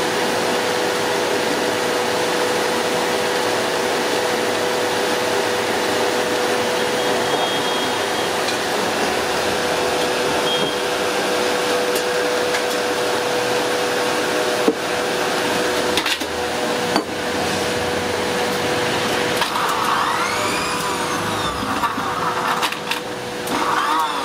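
A steady electric motor whine runs throughout. A few sharp knocks come a little past halfway, and clinks and busier handling sounds come near the end.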